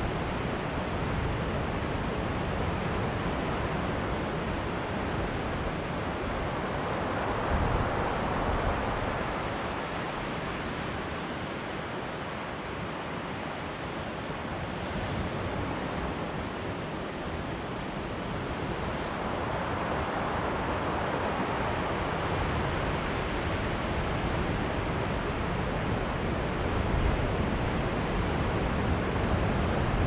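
Ocean surf washing and breaking against the rocks below, a steady roar that swells about a quarter of the way in and again past the middle, with wind buffeting the microphone.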